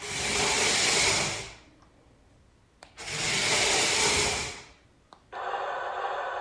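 Toy RC tank's small electric motor and gearbox whirring in two bursts of about a second and a half, each just after a click. About five seconds in, a steady sound with several held tones starts.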